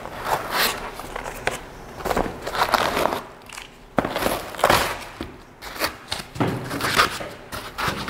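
Rustling, scraping and crackling of cardboard and foam packing as items are lifted out of a shipping box, in irregular bursts with a sharp tap about four seconds in.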